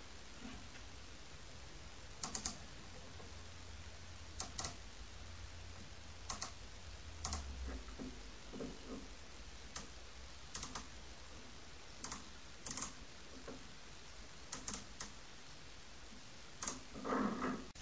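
Outside micrometer's ratchet stop clicking in short pairs and threes every second or two as it is closed on a test bar in the lathe chuck, taking diameter readings to check the lathe's level. A faint steady low hum runs underneath.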